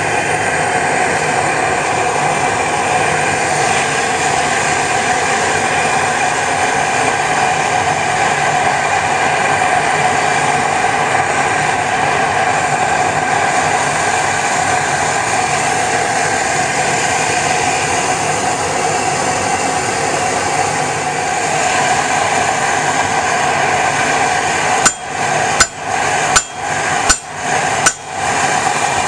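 Propane forge burner roaring steadily while steel heats. About 25 seconds in, five hammer blows about 0.7 s apart ring on glowing steel laid on a railroad-track anvil, striking a wired stack of O1 and mild steel in an attempt to forge-weld it.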